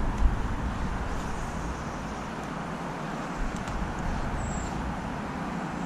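Steady hiss of distant road traffic, with one short high bird chirp about three-quarters of the way through.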